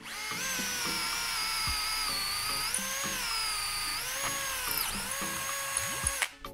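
Makita cordless drill-driver boring a hole through a clamped block of hard purpleheart (roxinho) wood; its motor whine sags in pitch under load and picks up again a few times, then stops near the end.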